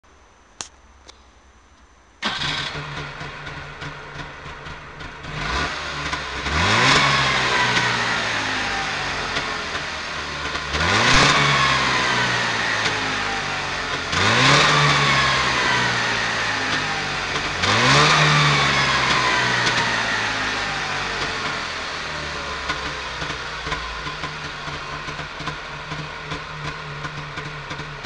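Trabant P601's two-stroke twin-cylinder engine, started about two seconds in after two faint clicks, idling, then revved four times with the pitch jumping up and sliding back down over a few seconds each time, before settling back to a steady idle.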